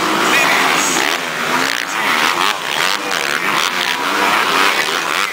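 Several motocross bikes' engines revving hard at once, their pitches climbing and dropping as the riders take a jump.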